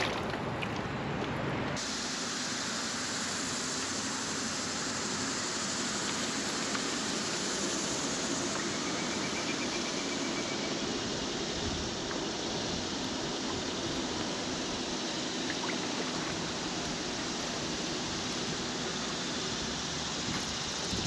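Steady wash of water along a kayak's hull as the boat moves through the lake, an even noise with no beat or rhythm.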